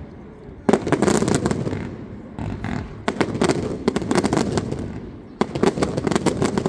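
Aerial fireworks bursting in salvos: three main clusters of rapid sharp bangs, about a second in, after three seconds and past five seconds, each fading away over a second or so, with a weaker cluster between the first two.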